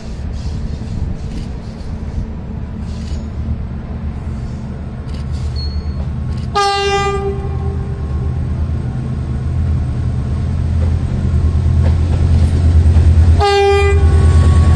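Diesel locomotive hauling double-deck coaches approaches and passes close by, its engine drone growing louder. It sounds two short horn blasts, about six and a half seconds apart.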